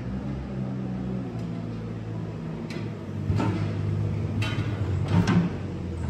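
A machine's engine running steadily, with several sharp metallic knocks and clanks, the loudest near the end.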